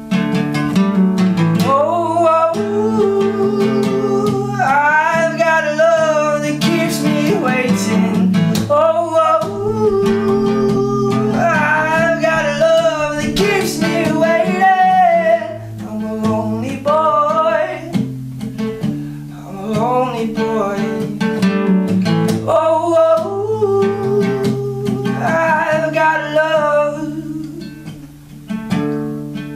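Acoustic guitar strummed steadily, with a man singing over it in phrases separated by short breaks.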